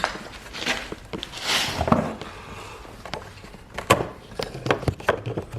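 Handling of a removed car headlight assembly: scattered sharp clicks and knocks of hard plastic, with a brief rustle about a second and a half in.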